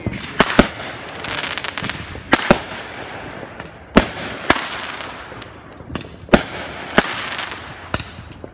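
Aerial fireworks going off: about eleven sharp bangs at uneven intervals, some in quick pairs, with a hissing haze between them.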